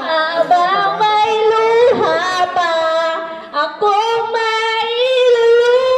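Girl singing into a handheld microphone, holding notes, with a long steady note through the second half.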